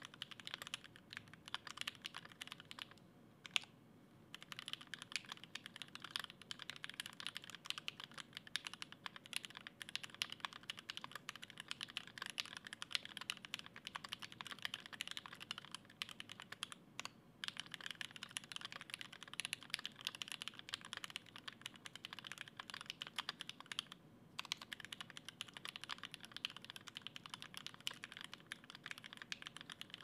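Continuous typing on a kbdfans D65 mechanical keyboard with an aluminium plate, case foam and Gateron Ink Black v2 linear switches lubed with Krytox 205g0, under GMK keycaps: a dense, quick stream of keystrokes. The typing breaks off briefly about three, seventeen and twenty-four seconds in.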